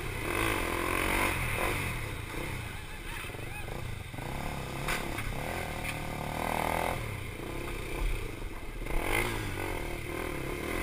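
KTM Duke 390's single-cylinder engine revving up and dropping back again and again as the motorcycle is ridden hard through tight corners, the pitch rising and falling every second or two.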